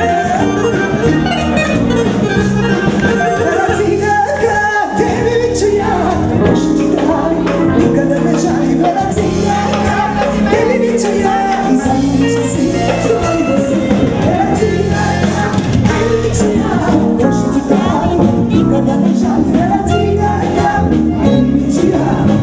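Live band music: a woman sings through an amplified microphone over electric keyboard and drums, with a steady beat.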